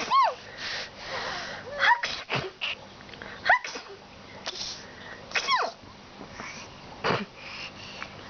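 A person sneezing again and again, with a baby giving high, falling squeals of delight, about five in a row, spaced a second and a half to two seconds apart.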